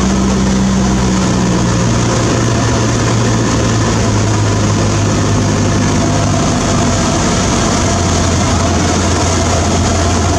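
Cessna 152's four-cylinder Lycoming O-235 engine and propeller running, heard from inside the cabin, a steady loud drone whose pitch steps lower twice, about two seconds in and again past the middle, as power comes back on the approach to land.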